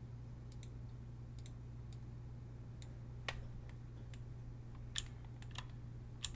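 Scattered light clicks of a computer mouse, its buttons and scroll wheel, about a dozen spread irregularly with a few sharper ones near the middle and end, over a steady low hum.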